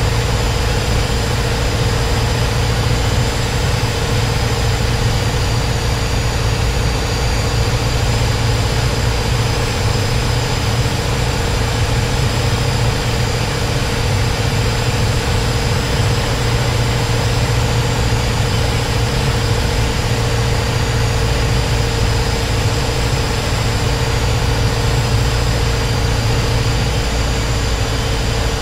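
Propeller aircraft engine running steadily in flight, a loud, even drone with the propeller's hum, heard from inside the cabin.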